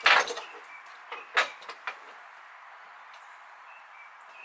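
Parts and tools being handled: a clatter right at the start and a second sharp knock about a second and a half in, then only a low steady hiss.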